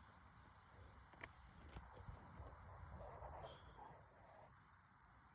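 Near silence: faint outdoor night ambience with a steady high-pitched hiss, a low rumble and a few faint ticks.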